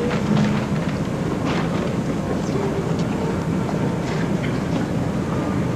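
Steady rumbling hubbub of a railway station concourse, with a few faint clicks and clatter.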